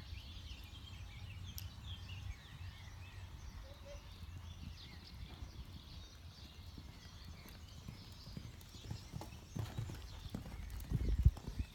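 Sport pony's hoofbeats on arena sand, growing louder and loudest near the end as it passes close by, over a steady low rumble.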